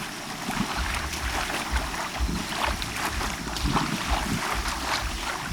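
Small waves lapping on a bay shore, with wind buffeting the microphone in uneven low rumbles.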